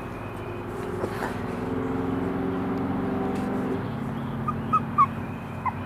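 A steady low motor hum for a couple of seconds, then a few short, faint high squeaks near the end: a three-week-old Airedale Terrier puppy starting to whimper.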